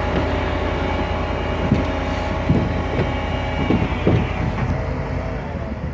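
An engine running steadily, with a few short knocks a couple of seconds in, its pitch dropping and its sound fading near the end as it slows.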